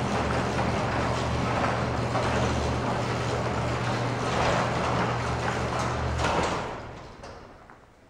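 Commercial garage door operator running, its electric motor and belt-and-pulley drive giving a steady low hum under a mechanical rattle. It shuts off about six seconds in and winds down.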